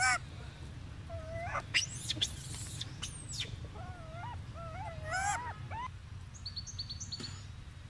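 A run of short squeaky animal calls that bend up and down in pitch, one at the start, another about a second and a half in, and a quick string of four or five about four to five seconds in. There are also a few sliding high glides before the string and short high chirps near the end, over a steady low hum.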